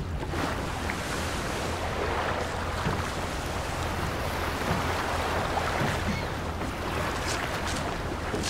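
Steady seaside ambience of wind and waves, with a low steady hum underneath.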